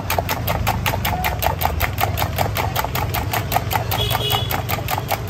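Spoon beating eggs in a small stainless-steel mug, clinking against the metal in a fast, even rhythm of about seven strikes a second, over a steady low hum.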